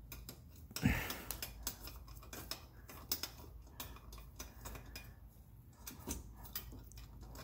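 Quick, irregular metallic clicking of a socket wrench turning a mounting bolt on an aluminium radiator guard, with one louder knock about a second in.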